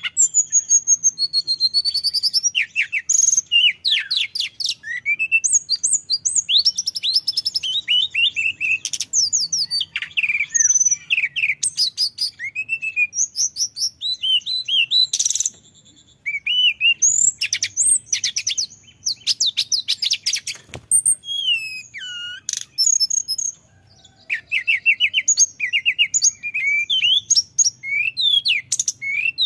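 Male hill blue flycatcher (tledekan gunung) singing a long, fast run of high whistled notes, trills and rising and falling slurs, breaking off briefly twice.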